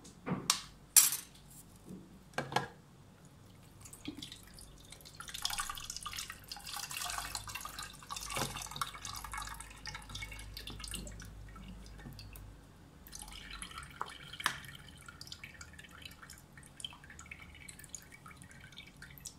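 Steeped rice-and-banana-peel liquid poured from a tin can through a plastic colander into a jug: a steady splashing pour for several seconds, then slower dripping. A few sharp knocks come in the first few seconds.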